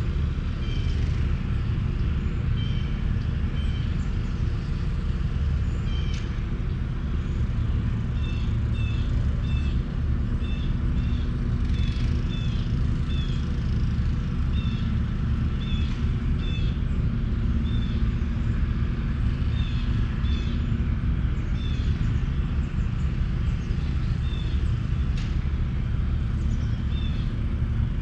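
Outdoor ambience: a steady low rumble throughout, with a bird repeating short, high chirps, often two notes at a time, that come more often from about a third of the way in.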